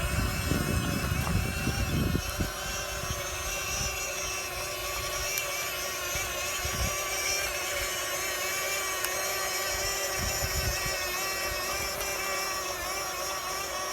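Radio-controlled model excavator's small electric motor whining steadily as the machine works. There are irregular low knocks and clunks in the first couple of seconds.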